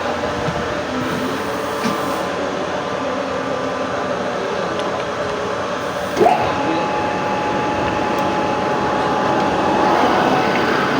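Steady mechanical drone of factory machinery. About six seconds in, a tone glides up and then holds steady.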